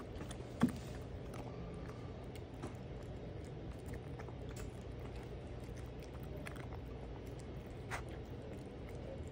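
Maine Coon kitten eating wet canned cat food: steady wet chewing and smacking with small clicks, and one sharper click about half a second in and another near the end.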